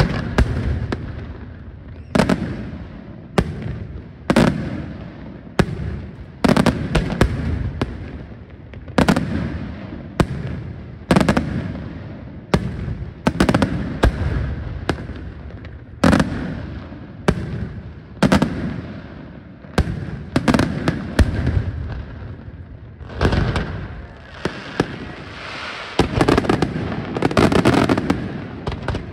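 Daytime fireworks shells bursting overhead in a steady run of sharp bangs, about one a second, each trailing off in an echo. Near the end the bursts thicken into a dense, near-continuous barrage.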